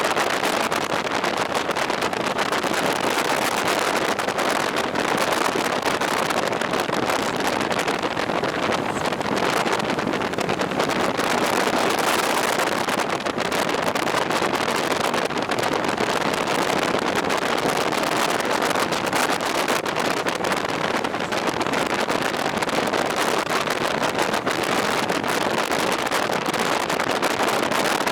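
Steady rush of wind on the microphone of a moving two-wheeler, with road noise underneath and no clear engine note.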